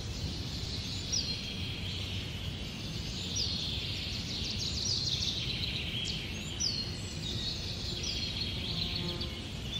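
Forest ambience with a small bird repeating a short high call, falling then levelling off, every second or so. Busier high twittering comes in the middle, over a steady low outdoor rumble.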